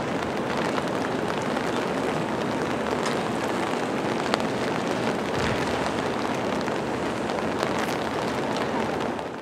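Steady rain falling, with scattered sharp ticks of single drops; it cuts off abruptly near the end.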